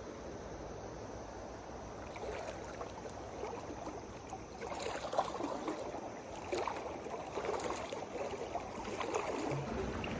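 River water running steadily, with irregular splashing and sloshing that starts about two seconds in and grows busier after four seconds.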